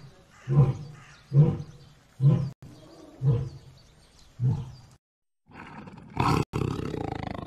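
A big cat calling in a series of deep, hoarse grunting roars, about one a second, six in all. After a short break near the end a different, steadier animal sound starts.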